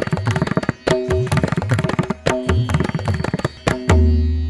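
Intro music with a fast hand-drum rhythm whose bass strokes rise in pitch. Near the end it settles on a held low chord that fades away.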